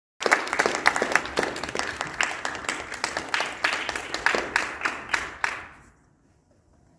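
A small audience clapping, sharp separate claps with one clapper close by, fading out about six seconds in.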